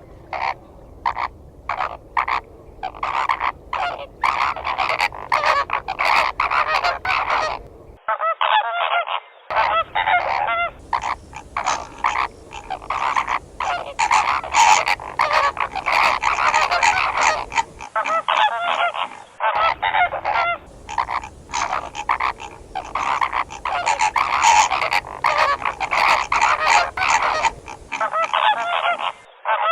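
Flock of flamingos calling, many honking calls overlapping without a break. The recording is spliced from several clips and cuts abruptly a few times, near 8, 11 and 18 seconds in.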